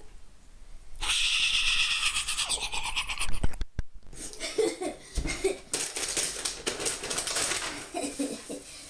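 Rustling and crinkling of a banana costume and its plastic bag being handled, with a child giggling.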